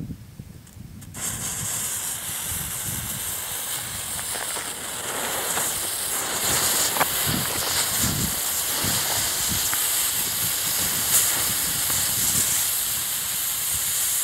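A batch of sixteen firework smoke balls burning together, giving a loud steady hiss that starts abruptly about a second in, with a low rumble underneath.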